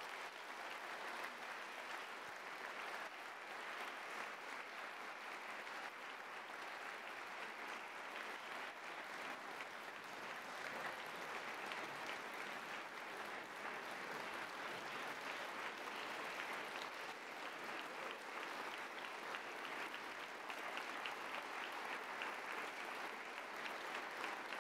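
Audience applauding: a long, steady round of clapping that swells over the first couple of seconds and then holds.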